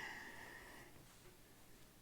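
Near silence: room tone, with a faint short sound at the very start that fades out within about a second.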